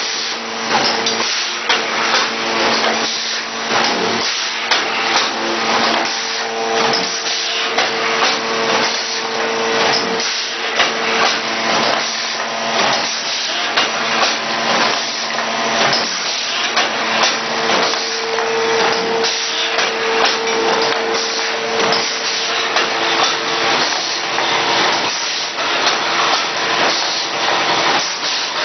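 Automatic face mask folding and packing machine running, with fast, continuous clattering and clicking from its moving parts and pneumatic cylinders. Under the clatter runs a steady hum that grows louder in two long stretches.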